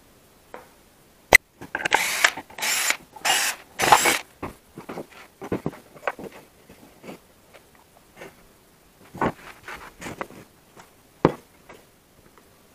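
Small parts being handled and disconnected by hand: a sharp click, a few short scraping bursts, then scattered light knocks and clicks, as a USB charging socket module is taken back off its battery wiring.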